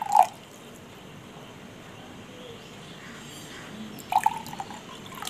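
A thin stream of water pours from a plastic bottle into a small glass of sodium polyacrylate powder. There are short splashy drips right at the start and again about four seconds in.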